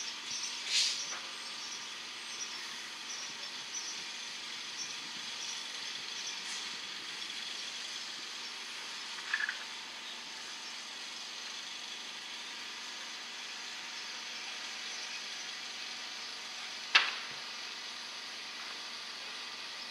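Steady outdoor background hiss with faint bird chirps. A few short sharp clicks come through it, the loudest near the end.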